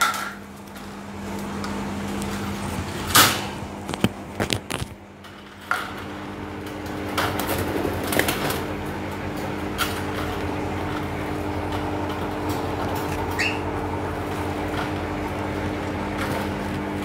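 Wire bird cage clinking and rattling a few times in the first five seconds as a hand works through its door, over a steady low hum.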